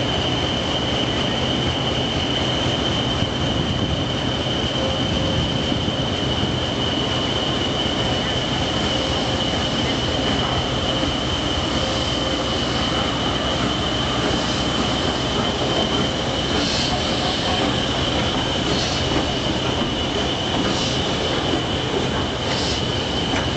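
A Southern Railway Urie S15 steam locomotive moving slowly past over a standing Class 20 diesel locomotive, which idles with a constant high whine and a low hum. From about halfway through, short hissing bursts come every second or two.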